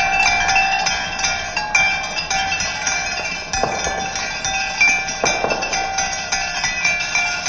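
Marbles clicking and clacking rapidly along a marble run, over steady ringing tones that change pitch every few seconds.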